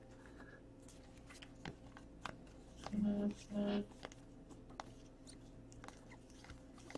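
Faint clicks and soft flicks of glossy Topps Chrome trading cards being flipped through by hand, with two short murmured voice sounds about three seconds in.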